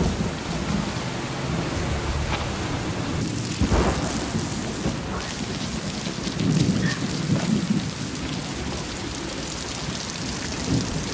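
Steady rain falling, with thunder rumbling low about four seconds in and again around seven seconds in.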